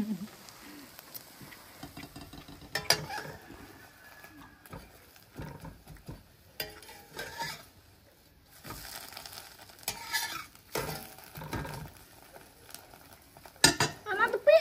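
Metal spatula scraping and turning an omelet in a metal wok, with the egg sizzling in hot oil and the odd clink of the spatula on the pan.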